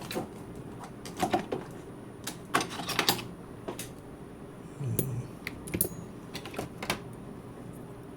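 Irregular small clicks and taps of metal tweezers and small watch parts against the watch case and the work surface, some in quick pairs.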